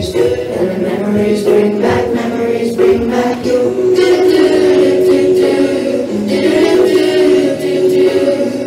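A choir of voices singing together, holding long notes.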